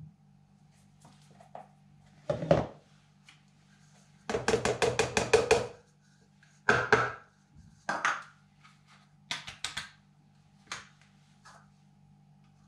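A small plastic cup knocked quickly against a plastic container, about ten rapid taps in a second and a half, to shake out weighed-out powder, with single knocks of plastic tubs and the cup set down on a countertop before and after. A low steady hum underneath.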